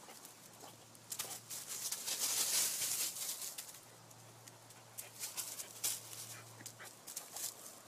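Rustling and light scuffing in dry leaves and gravel as a dog moves about, with many small clicks, loudest about two to three seconds in. A faint steady low hum sits underneath and stops about a second before the end.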